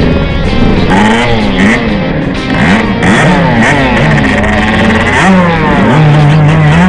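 Motocross bike engine revving up and down again and again, its pitch briefly held steady between the swings.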